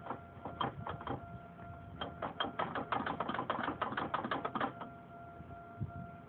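A quick run of sharp clicks, about seven a second, lasting a little under three seconds, with a few scattered clicks about a second before it, over a faint steady whine.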